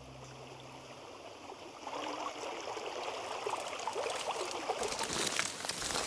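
Shallow creek trickling and splashing over rocks, growing louder about two seconds in. Near the end, crackling of dry twigs and brush underfoot comes in.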